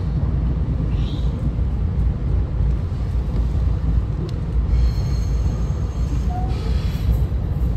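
SEPTA Regional Rail electric train running, a steady low rumble.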